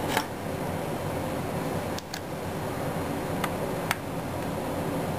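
Hard plastic scale-model kit parts being handled and a small screw driven in with a screwdriver: four short sharp clicks, a second or more apart, over a steady background hum.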